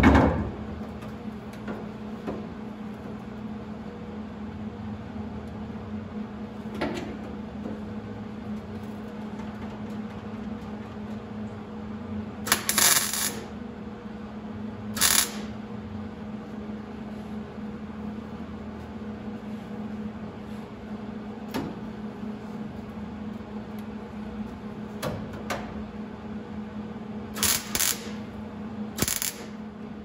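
Welder tacking a sheet-steel patch panel into a car's rusted floor pan: short crackling bursts of welding about twelve seconds in, again around fifteen seconds, and a cluster near the end, over a steady low hum. A sharp knock at the very start.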